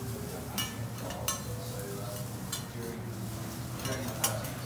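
Metal spatula and scraper clacking and scraping on a steel teppanyaki griddle as fried rice is chopped and turned: a handful of sharp clacks spread through, the loudest near the end, over a low steady hum.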